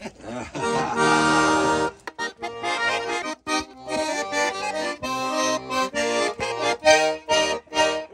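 Russian garmon (button accordion) being played: a held chord about a second in, then a brisk, rhythmic folk tune of short chords over bass notes that breaks off suddenly at the end.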